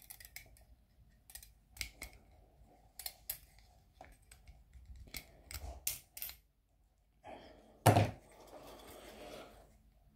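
Small clicks and knocks of hands working the alternator brush holder and its parts, pressing the brushes in to free the dust cover, with one louder thump about eight seconds in followed by a brief rustle.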